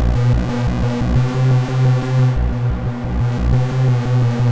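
SOMA Lyra-8 drone synthesizer playing a sustained, overdriven drone from one oscillator pair, modulated by its Hyper-LFO, with a strong low tone, many overtones and a throbbing bass underneath.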